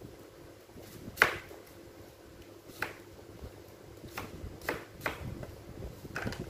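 Cleaver chopping a root vegetable on a thick wooden chopping block: about six sharp knocks at uneven spacing, the loudest about a second in.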